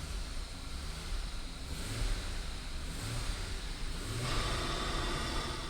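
Holden Commodore 3.8-litre V6 engine running, a steady low rumble, with a rushing noise growing louder about four seconds in.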